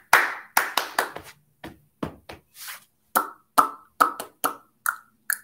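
A woman's hand claps in quick succession, then a slower string of tongue clicks and mouth pops, about two a second, played as a rhythm in a children's clapping game.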